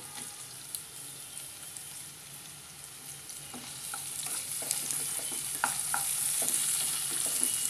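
Sliced onions and chopped tomatoes sizzling in hot oil in a nonstick kadai, with a slotted spatula scraping and stirring them. The sizzle grows louder over the second half.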